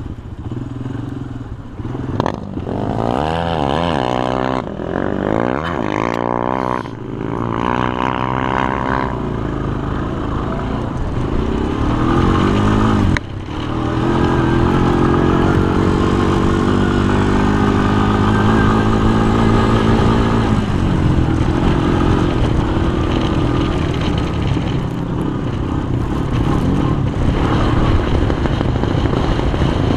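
Yamaha sport quad's engine revving up and down over the first several seconds as it is ridden over the dunes. About 13 seconds in there is a short break in power, then the engine holds at steady high revs and eases off about 20 seconds in.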